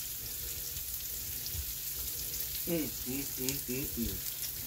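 Salmon fillets sizzling in garlic butter on an indoor electric grill: a steady hiss with scattered small pops and crackles. A voice is briefly heard about three seconds in.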